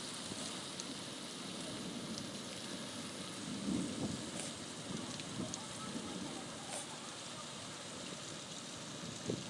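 Rain falling onto a puddled concrete slab: a steady, even hiss, with a few low thuds, the loudest about four seconds in.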